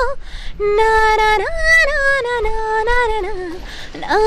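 A woman singing a Nepali modern song unaccompanied, holding long notes with sliding, ornamented turns. There is a short breath before the phrase and another near the end.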